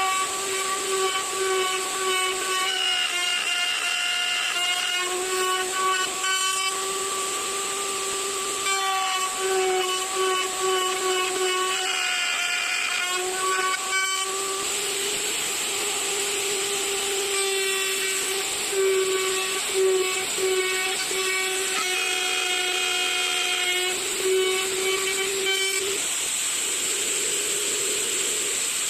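Woodworking machine running with a steady, high, whistling whine whose pitch and overtones shift and briefly break every few seconds, over a constant hiss.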